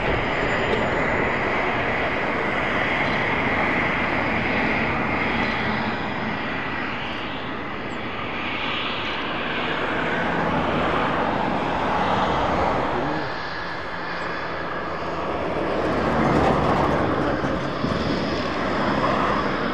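Eurofighter Typhoon's twin Eurojet EJ200 turbofan engines running at taxi power as the fighter taxis on the ground: a continuous jet whine and rush, swelling a little louder about twelve and sixteen seconds in.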